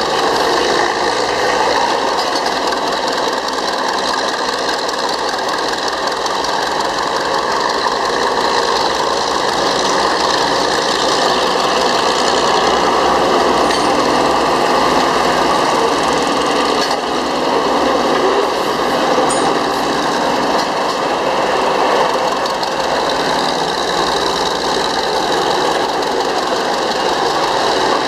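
Northwest Model 6 cable shovel's Murphy diesel engine running steadily under load, with the rattle of its mechanical drive, as the shovel digs and swings.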